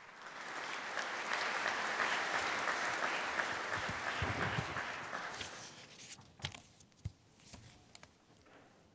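Audience applauding, building over the first second or so and dying away about six seconds in, followed by a few scattered knocks.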